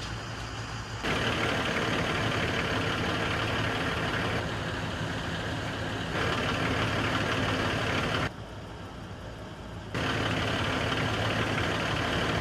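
Heavy truck engines idling steadily at a crash-recovery scene, a low hum under a haze of engine noise. The level jumps abruptly a few times, louder from about a second in, dipping briefly near the two-thirds mark and then returning.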